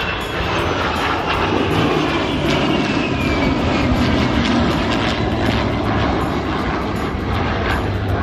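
Fighter jet engines roaring in a flypast, with a high whine that slides down in pitch over a few seconds as the jets go by.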